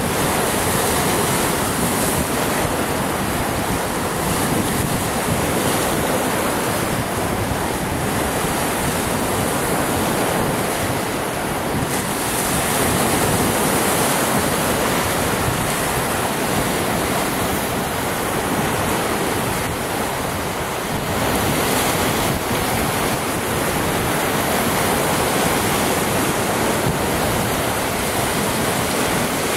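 Lake Superior waves breaking and splashing against a flat rock shoreline in a continuous wash that swells and eases, with strong wind rumbling on the microphone.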